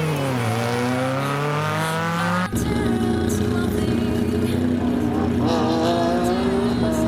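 Rally car engine accelerating hard, its note climbing steadily; about two and a half seconds in it cuts abruptly to another rally car engine held at high revs, rising only slowly.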